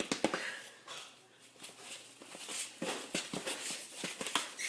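A macaw clicking and tapping at a shoe: bursts of short, sharp clicks near the start and again about three seconds in.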